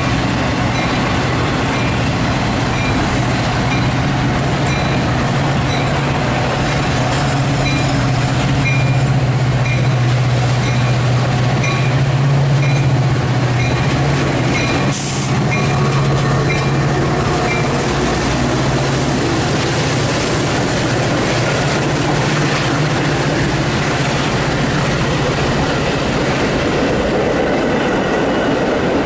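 A Metra commuter train led by an F40PH-type diesel locomotive passes at the same moment as a BNSF double-stack intermodal freight on the next track: a steady low diesel drone under the clatter of wheels over rail joints. A bell rings repeatedly through the first half.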